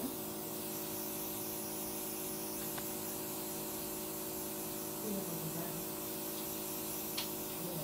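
Handheld airbrush wand of an oxygen infusion facial machine spraying a steady hiss of pressurized oxygen, over the machine's steady hum.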